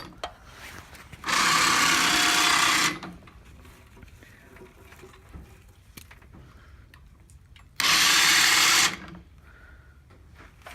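Electric winch run off a car battery, its motor whining in two short bursts while hoisting a log: about a second and a half starting just over a second in, and about a second near the end.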